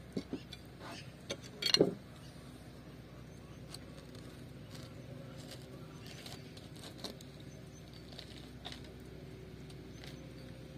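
Hands handling and peeling an orange on a wooden table: a couple of sharp knocks about two seconds in, then faint soft sounds of the rind being torn over a quiet outdoor background.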